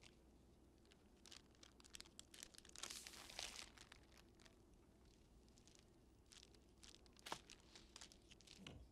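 Faint crinkling and rustling of a plastic snack packet being handled, with a denser burst of crinkling about three seconds in and a single sharp click about seven seconds in.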